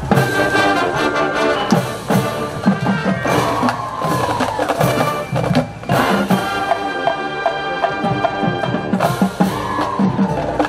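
Marching band playing: held brass chords over steady drumline percussion with sharp, clicking strokes.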